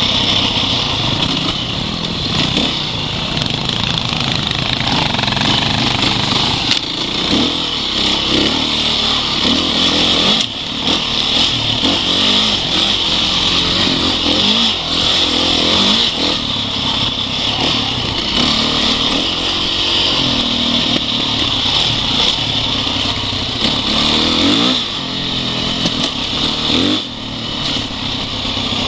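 Dirt bike engine heard close up from the rider's seat, running continuously, its pitch rising and falling every second or two as the throttle is worked over a rough dirt trail.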